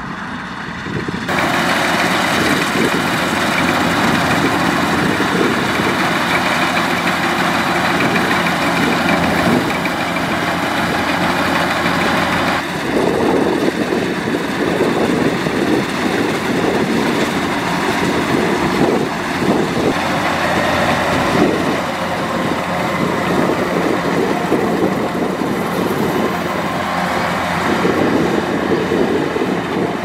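Crawler rice combine harvester running under load as it cuts standing rice: a steady, loud engine and machinery noise. The sound jumps up about a second in and changes abruptly again near the middle.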